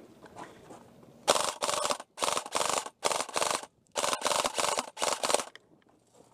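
Airsoft electric rifle firing five short full-auto bursts of rapid clicking shots, starting about a second in, each burst lasting about half a second with brief pauses between.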